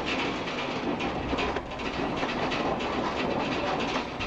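A house shaking in an earthquake: a continuous low rumble with a dense, rapid rattle and clatter of the room's contents.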